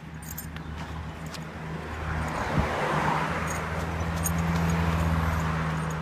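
A car driving past on the road: a steady engine hum with tyre noise that swells toward the middle and eases off near the end.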